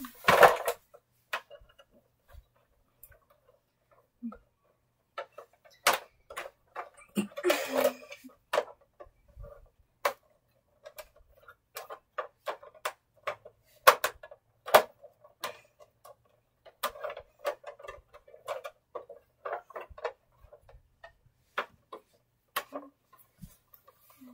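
Irregular light clicks and knocks of toys being handled, a plush toy set into a plastic toy car, with a short rustle about seven seconds in.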